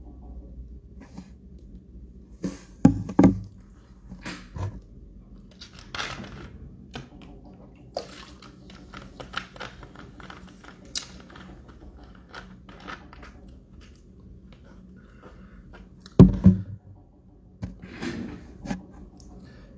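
Plastic water bottle being handled close to the microphone: scattered crackling clicks and taps, with two loud dull thunks about three seconds in and about sixteen seconds in.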